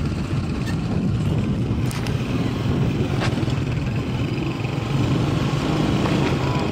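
A motor running steadily with a low hum, with a couple of faint clicks about two and three seconds in.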